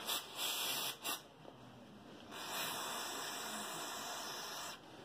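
Aerosol brake cleaner spraying: three short squirts, then one long steady spray of a couple of seconds, cleaning carburettor parts.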